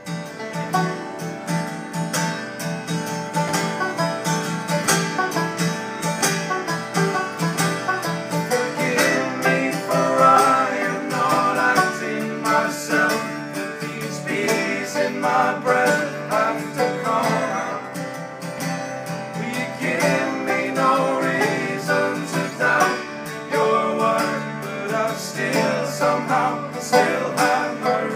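Live unplugged folk band: strummed acoustic guitars and a fast-picked five-string banjo playing together, recorded through a phone's microphone from the audience. From about nine seconds in, voices sing along over the strumming.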